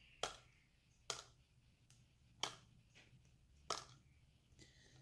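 Plastic game spinner being flicked and handled: four sharp clicks about a second apart.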